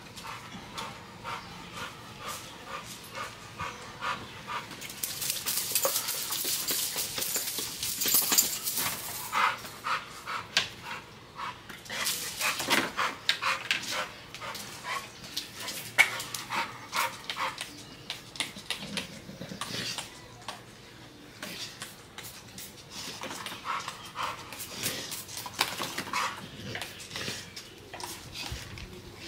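A pet dog panting and moving about, with many small clicks and rustles throughout.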